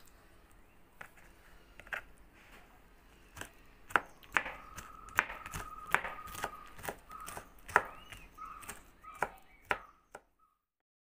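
Kitchen knife chopping pineapple on a wooden chopping board: sharp knocks of the blade on the board, a few at first, then a quicker run of about two to three a second, stopping about ten seconds in.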